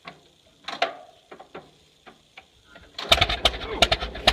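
1929 McCormick-Deering tractor engine being hand-cranked: a few separate knocks and clicks as the crank is pulled over, then about three seconds in the engine catches and starts running with rapid firing.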